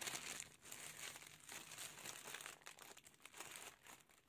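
Tissue-paper wrapping crinkling and crackling as hands squeeze and pull at it, in irregular close-up rustles that grow quieter toward the end.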